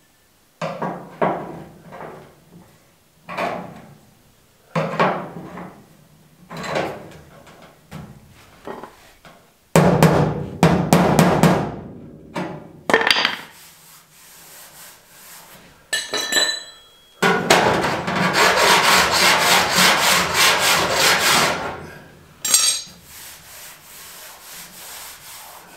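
Hammer and dolly worked against the bare steel edge of a car door to knock down a sprung edge that flares out at the front corner: a run of separate blows and scraping strokes, a brief metallic ring about sixteen seconds in, then several seconds of rapid steady tapping.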